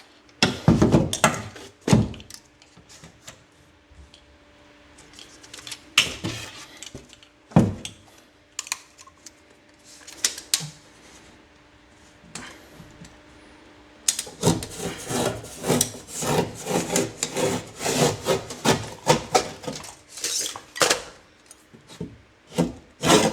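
A piece of drywall being handled, measured and marked by hand: scattered knocks and scrapes, then a long run of quick rubbing strokes in the second half.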